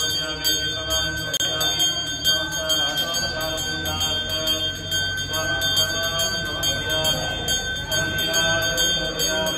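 Brass hand bell (ghanta) rung rapidly and without pause during arati, its clear high ring sustained by fast repeated strikes.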